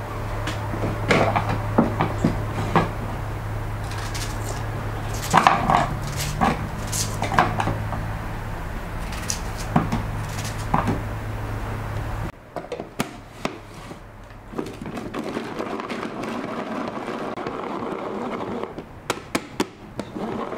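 Knife cutting through a red onion: a series of crisp cuts and taps over a steady low hum. The hum stops about twelve seconds in, and a few faint clicks and then a quick run of clicks follow near the end.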